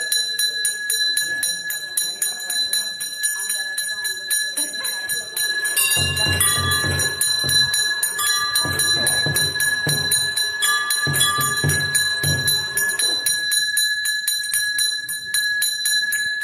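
A bell rung continuously in rapid, even strokes, its ringing tones held throughout. From about six seconds in to about thirteen seconds, a louder, lower sound joins it.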